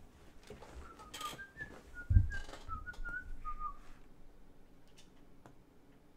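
A person whistling a short tune of quick notes for about three seconds, with a loud thump about two seconds in and some rustling.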